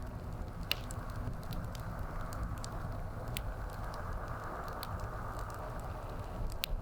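Wood fire crackling steadily, with sharp pops and snaps scattered through it; one of the loudest pops falls near the end.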